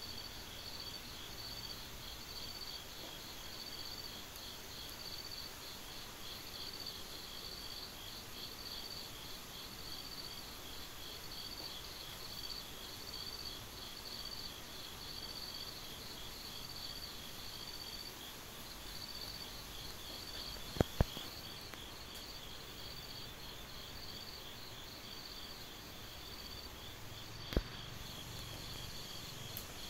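Night insects chirping steadily in a continuous high, pulsing trill. Two sharp clicks come close together about two-thirds of the way through, and one more comes near the end.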